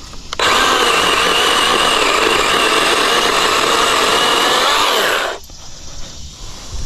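Craftsman V20 20-volt 12-inch battery chainsaw running and cutting through brush, with a steady electric motor whine over the chain noise; it starts just under half a second in and stops about five seconds in.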